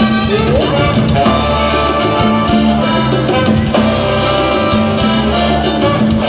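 Live band with a horn section playing upbeat Latin dance music, loud and steady over a repeating bass and drum beat.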